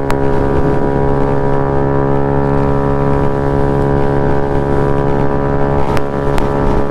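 Engine of a modified Honda Ruckus scooter running at a steady cruise, its drone holding one even pitch.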